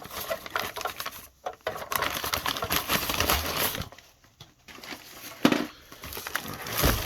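Packaging rustling and vacuum cleaner attachments being handled and unwrapped, with scattered small knocks and a sharp click about five and a half seconds in.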